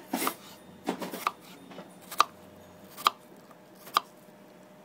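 Kitchen knife dicing a peeled apple on a cutting board: about six sharp knocks of the blade striking the board, the last three the loudest and about a second apart.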